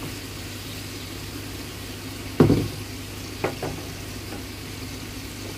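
Garlic cloves frying in hot mustard oil, a steady sizzle. A wooden spatula stirs in the pan, with a thump about two and a half seconds in and a lighter tap a second later.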